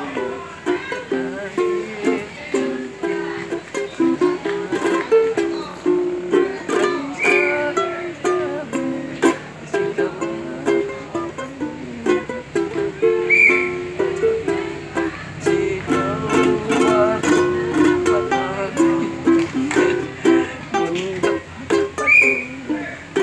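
A man sings a folk song in an old, wavering voice while strumming a ukulele.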